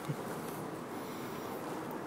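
Tabby cat purring close to the microphone: a steady low buzz.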